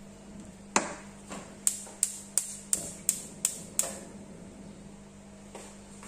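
A wooden spoon knocking against the side of a large metal pot of thick stew while stirring: about nine sharp knocks at roughly three a second, starting about a second in and stopping before halfway.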